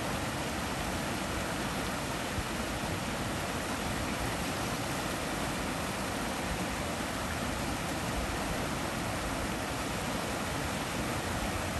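Shallow rapids on a small stream, water rushing over rocks in a steady, unbroken rush.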